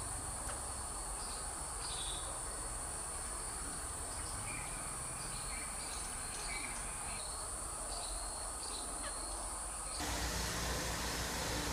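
Outdoor ambience of insects droning with a steady high-pitched sound, with scattered short bird chirps. About ten seconds in the insect drone stops abruptly and a louder steady low rumble with hiss takes over.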